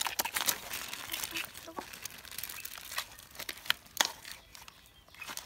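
Papaya salad with crab being tossed in a metal bowl with a wooden pestle and a metal spoon: irregular sharp clicks and knocks against the bowl, with wet crinkling of the shredded papaya and crab shells.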